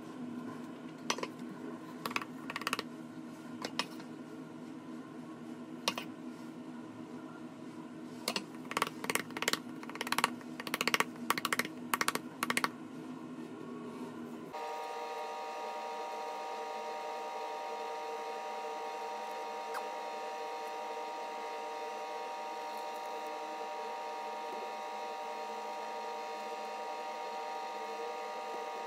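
Light clicks and taps of a metal spatula and tart tin being handled on a counter, scattered at first and then in a quick run about ten seconds in, over a steady low hum. Halfway through the sound changes abruptly to a steady hum with several pitches.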